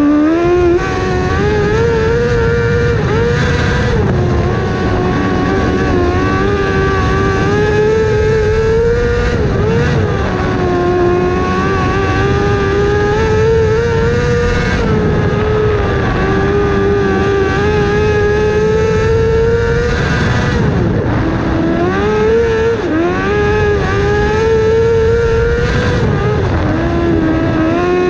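Engine of a small open-wheel dirt-track race car heard from the cockpit, running at high revs, its pitch dipping several times as it lifts for the corners and climbing again down the straights, over a steady rush of wind and road noise.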